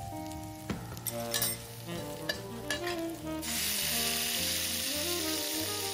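Fried tofu cubes sizzling in hot oil in a wok as they are stirred, with a few clinks about a second in. The sizzle turns louder and steadier a little past halfway.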